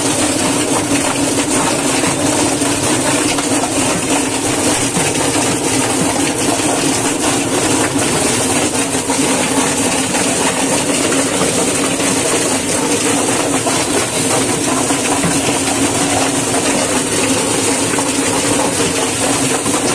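Electric drum-type chicken plucker running, its spinning rubber-fingered plate plucking a bird: a loud, steady mechanical rattle over a constant hum.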